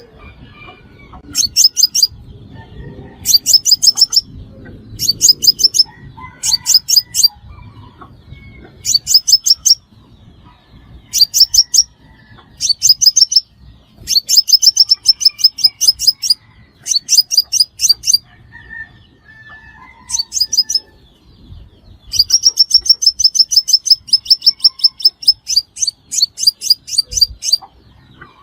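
Sunbird song: repeated bursts of rapid, very high-pitched twittering trills, some short and some running about two seconds, with brief pauses between.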